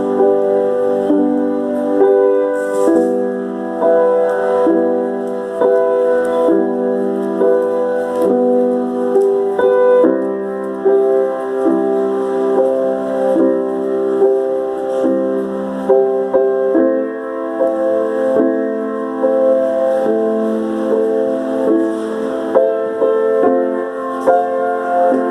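Piano playing a slow run of held chords, each changing every second or two.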